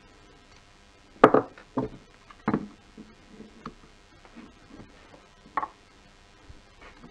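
Hard plastic clicks and knocks as a Mercedes W212 steering-wheel shift paddle assembly is worked apart by hand and screwdriver. There are three sharp snaps about half a second apart, starting a little over a second in, then lighter taps and one more sharp click a little after five seconds.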